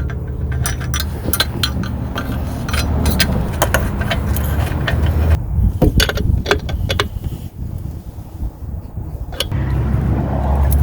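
Irregular metallic clinks and scrapes of a wrench and metal parts as oxygen sensors are threaded and tightened into a new catalytic converter, falling off about two-thirds of the way through. Under it runs a steady low wind rumble on the microphone.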